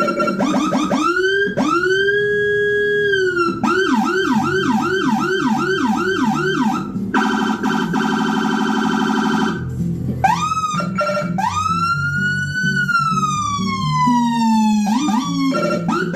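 Electronic vehicle siren cycling through its tones. First come short quick sweeps, then a slow wail that rises, holds and falls, then a fast yelp of about three sweeps a second. After that comes a rapidly pulsing steady tone, then more quick sweeps and another long slow wail falling away.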